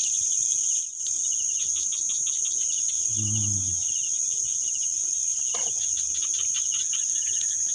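Dense chorus of crickets and other night insects: a steady, high-pitched drone.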